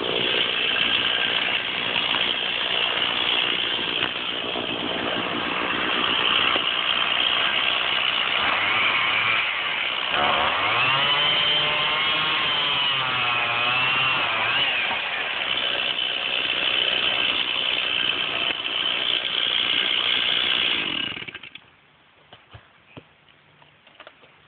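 Stihl chainsaw running at high revs while cutting into a wooden leg of a pallet-built wood stand. About ten seconds in, the engine pitch drops and wavers for several seconds before climbing back. The saw stops sharply about three seconds before the end, leaving a few faint knocks.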